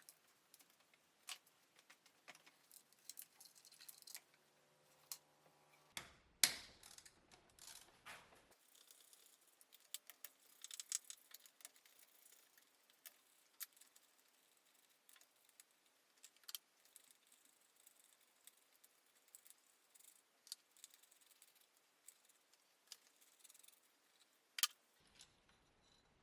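Irregular light metallic clicks and clinks of hand tools and small metal parts being handled, with sharper knocks about six and a half seconds in and near the end.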